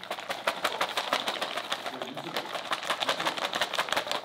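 A chocolate's wrapper crinkling as it is unwrapped by hand: a fast, dense crackle of many small clicks.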